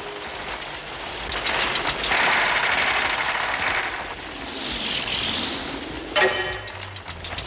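Cartoon sound effects: a rushing hiss, then a swooping sound that dips and rises, a sharp knock about six seconds in, and a low hum near the end.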